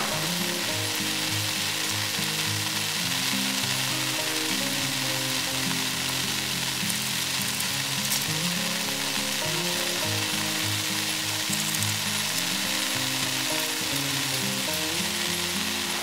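Steady hiss of rain, with background music playing low, slowly changing notes under it.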